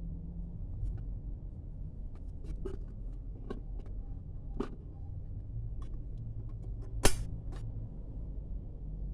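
Scattered light clicks and clinks as an MSR Fusion Ceramic solo cook pot is handled: the lid fitted on and the folding handle swung out, with one sharp click about seven seconds in. A steady low hum underneath.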